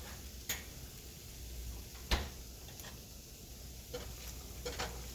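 A handful of short, scattered clicks and knocks of kitchen items being handled, the loudest about two seconds in, over a steady low hum.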